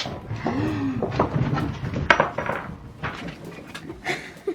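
Small objects clattering and clinking into a bowl: Orbeez water beads spilling out of a cut-open mesh stress ball.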